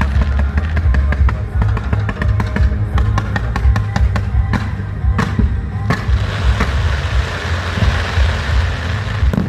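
Fireworks crackling and banging over loud music with a heavy bass beat; the crackling turns to a dense sizzle about six seconds in.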